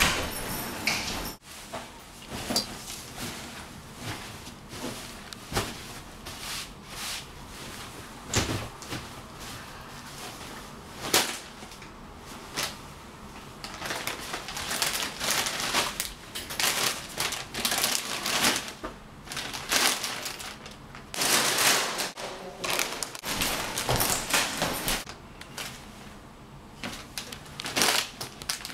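Irregular knocks, taps and rustling handling sounds, with dense clusters of sharp clicks in the middle part.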